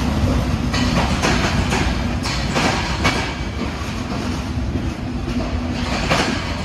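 Passenger coaches of an arriving Czech Railways train rolling slowly past a station platform. There is a steady rumble, and the wheels clack over rail joints several times a second.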